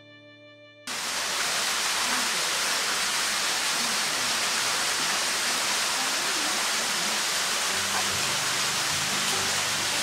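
Music with guitar and strings fading, cut off about a second in by a steady, even rush of running water.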